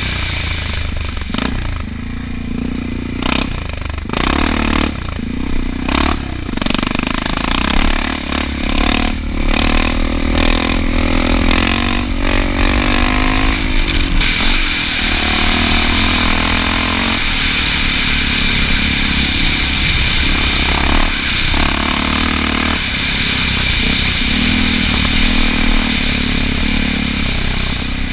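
Honda XR650L's single-cylinder four-stroke engine revving up and down while ridden off road, with repeated clattering knocks from the bike jolting over rough ground.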